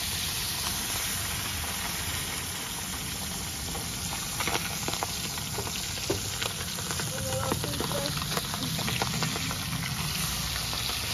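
Mojarras and catfish deep-frying in hot oil in a disco (plow-disc pan): a steady sizzle with scattered crackling pops.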